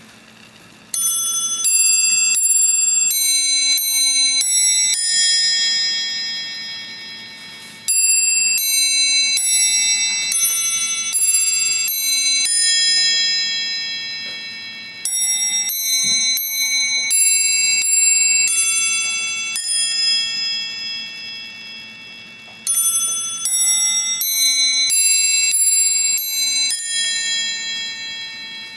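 Bracket clock's eight-bell chime playing four runs of about eight quick bell notes each, every run left to ring out before a pause of about two to three seconds.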